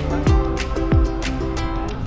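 Background music: plucked guitar over held notes, with deep drum hits falling in pitch about every half second.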